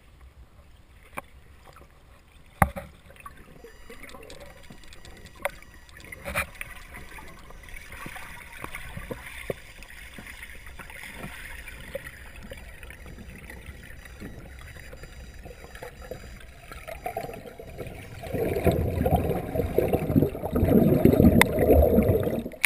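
Underwater sound heard through a camera housing: a faint steady water noise with a few sharp knocks, then loud churning and sloshing of water for the last few seconds as the diver comes up among other divers at the surface.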